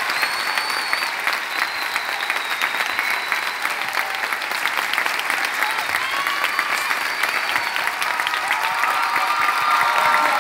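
A large theatre audience and cast applauding steadily with dense clapping, with voices calling out over it.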